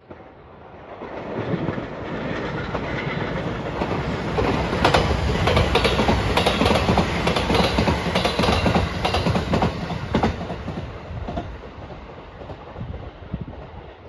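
Rapid Marine Liner electric multiple-unit train passing close by. Its noise builds over the first few seconds, then the wheels clack over the rail joints car after car, and it fades away over the last few seconds.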